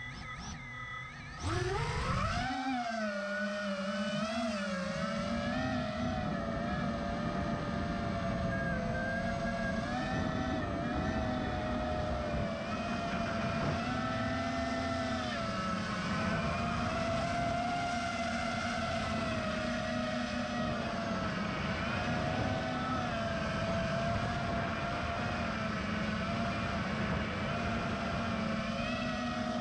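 Four brushless motors of a 6S FPV racing quadcopter (Lumenier ZIP 2407 1700Kv motors turning 5040 three-blade props) spinning up sharply with a rising whine about a second and a half in as it takes off. It then flies with a continuous buzzing whine that rises and falls in pitch with the throttle.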